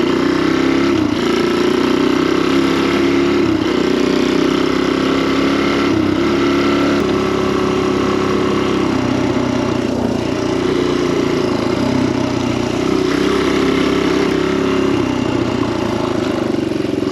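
Kawasaki KLX dirt bike's single-cylinder four-stroke engine idling steadily just after a cold start, its pitch wavering slightly now and then.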